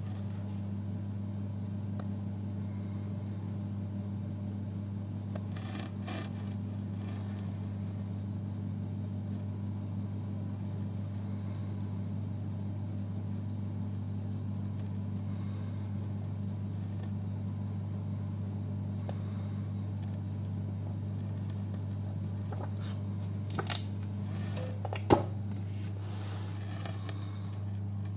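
A steady low hum, with a few brief soft rustles of paper pages being handled and one sharp tap about 25 seconds in.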